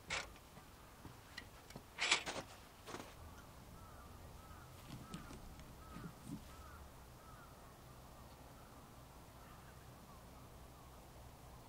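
A crow cawing three times in the first three seconds, the second call the loudest, followed by faint, quick repeated calls.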